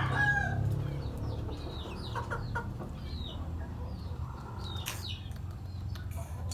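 Chickens clucking, with short high calls scattered through, as a rooster's crow trails off at the very start. A low steady hum runs underneath.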